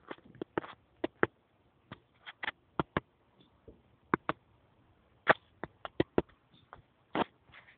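A run of sharp, irregular clicks and taps, some in quick pairs, with quiet gaps between.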